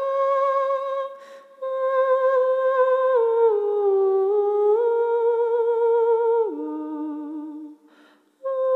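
A single voice humming a slow, wordless melody in long held notes that step up and down with a slight waver, broken by two short gaps, one about a second and a half in and one near the end.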